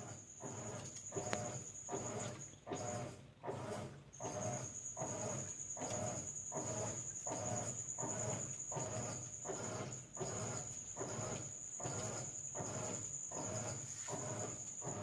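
GE King Capacity 15.1 kg top-load washing machine agitating during its rinse, water and clothes swishing back and forth about twice a second. A steady high whine runs underneath.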